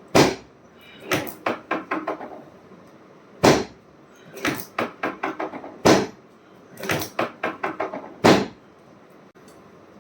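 Knocks and thumps of chiropractic adjustments. Four loud, sharp thumps come about two and a half seconds apart, and between them are quick runs of six or seven lighter knocks that fade away.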